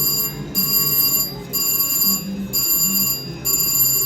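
Video gaming terminal slot machine sounding its win ringing: a bell-like electronic ring that repeats in bursts of roughly half a second, about one and a half a second, while a $191 win is paid out, stopping abruptly near the end.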